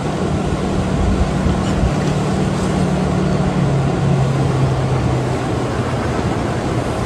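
Rushing floodwater of a flash flood sweeping down a wadi, a loud steady wash of noise. Under it a vehicle engine runs with a low steady hum that drops a little in pitch about halfway through.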